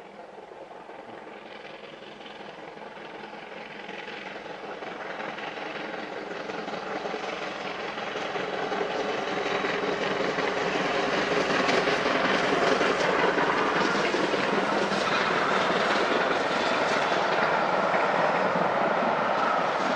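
Steam train hauled by BR Standard Class 7 'Britannia' 4-6-2 locomotive 70013 Oliver Cromwell passing with its coaches. It grows steadily louder over the first twelve seconds or so as it approaches, then holds at a steady level while the coaches run by.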